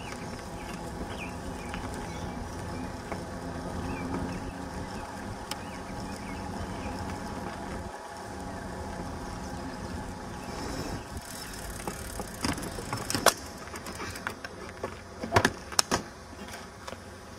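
Downhill mountain bike riding on a trail, heard close to the front wheel: a steady rumble of the knobby tyres rolling and the drivetrain running, with several sharp knocks and rattles over the last few seconds as the bike hits bumps.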